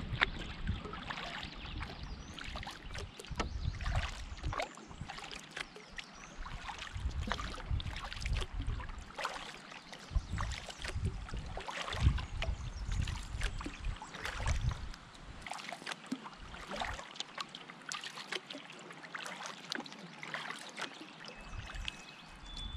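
Canoe paddling: paddle strokes splashing and water dripping and trickling, over an intermittent low rumble.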